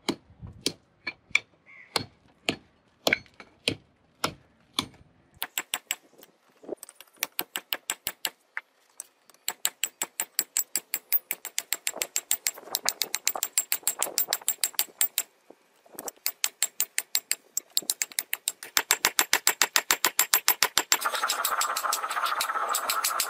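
Hammer striking red-hot bearing steel on an anvil, each blow with a high ring. The blows come slow and spaced at first, then quicken into a fast, steady rhythm of about five a second. Near the end a steady rushing noise rises under the hammering.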